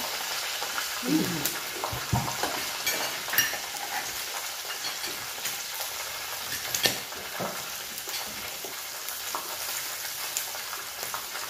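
Pork belly sizzling steadily on an electric grill plate, with scattered sharp metal clicks as tongs turn the pieces.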